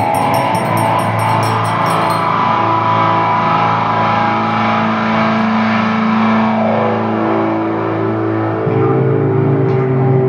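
Improvised drone music from bass and baritone electric guitar: layered held notes over a steady low drone, with no beat. A high shaking rhythm stops about two seconds in.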